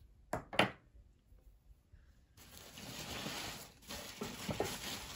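Two sharp clicks shortly after the start, then from about halfway a steady rustling of packing material as a hand digs through the box's contents.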